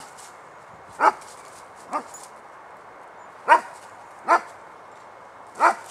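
Irish Setter barking: five single barks at uneven intervals, the second one softer than the others.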